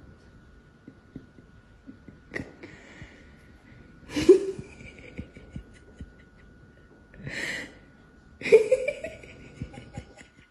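Four short breathy vocal sounds a second or two apart, the loudest about four seconds in, two of them with a brief rising pitch, over a faint steady high hum.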